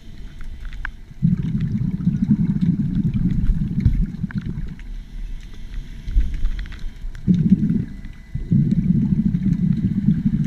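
Muffled underwater rumble heard through a GoPro's waterproof housing, coming in surges of a few seconds with quieter gaps between.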